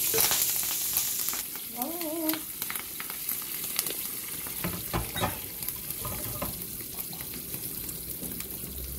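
Green chilies and curry leaves sizzling in hot oil with cumin seeds in a non-stick pan, the tempering stage of an Indian dry potato curry. The sizzle is loudest in the first second or so and then settles, with scattered pops and crackles.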